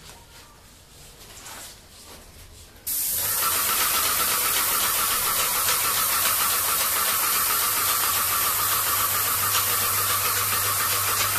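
Paint sprayer spraying paint onto a wall. It starts suddenly about three seconds in and then runs with a steady, loud hiss over a low motor hum.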